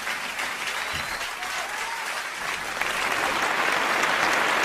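Theatre audience applauding at the end of a performance, the clapping swelling louder about three seconds in.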